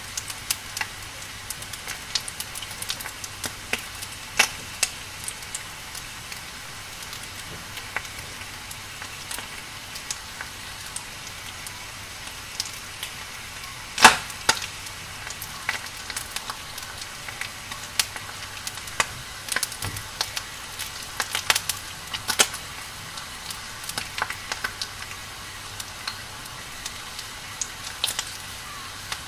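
Burning firewood crackling: irregular sharp pops and snaps over a steady hiss, with one louder pop about halfway through.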